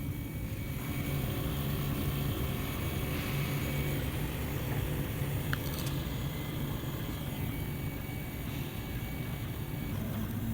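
FDM 3D printer running mid-print: a steady whir of stepper motors and cooling fan, with a faint steady whine and one small click about halfway through.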